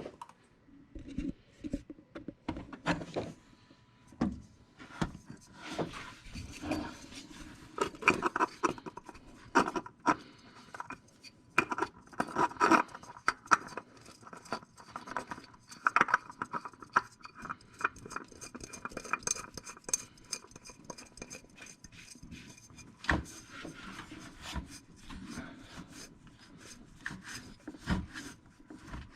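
A Fram PH6607 spin-on oil filter being screwed onto its engine mount by hand: irregular metallic scraping, rubbing and clicks as the canister is turned on its threads and snugged tight.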